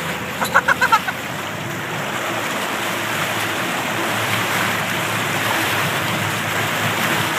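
Motorboat running at towing speed: steady rush of the churning wake and wind, with a low engine hum under it. About half a second in, a brief run of five or six quick high-pitched calls cuts through.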